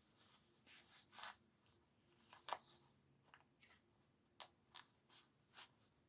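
Faint handling sounds, rustling and light clicks, with one sharper click about two and a half seconds in and a few more near the end.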